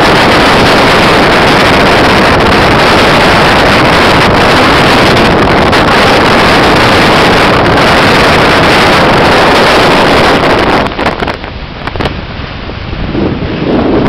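Strong wind blasting the microphone over breaking ocean surf, a loud, steady roar of noise. The wind eases for a couple of seconds about eleven seconds in, then picks up again near the end.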